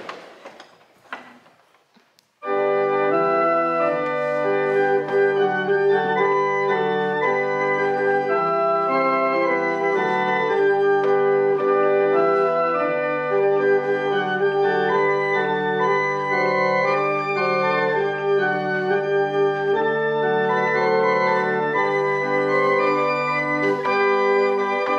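Hand-pumped 1863 chamber pipe organ being played: held chords with a moving melody line, starting abruptly about two and a half seconds in after a few faint knocks.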